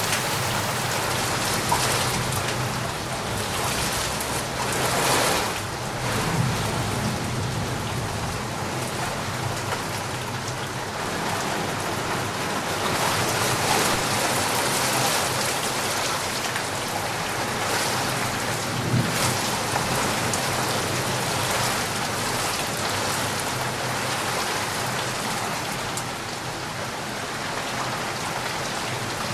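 Steady rain falling, an even hiss that swells slightly now and then.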